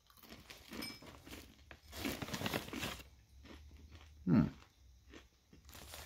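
Mouth chewing a crunchy ginger cranberry coconut cluster, with irregular crisp crunches mostly in the first three seconds. A brief sound of the voice comes about four seconds in and is the loudest moment.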